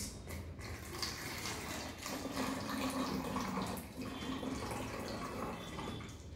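Water being poured from a plastic jug into a plastic water bottle, running steadily as the bottle fills.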